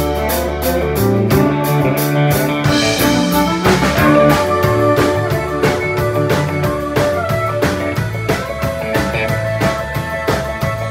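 Live country-rock band playing an instrumental passage of a southern-rock-style song: electric and acoustic guitars, fiddle and a drum kit keeping a steady beat.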